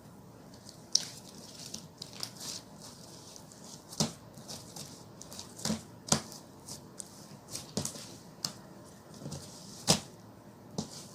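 Irregular light clicks and taps, a few sharper ones about a second in, at about four and six seconds, and near the end.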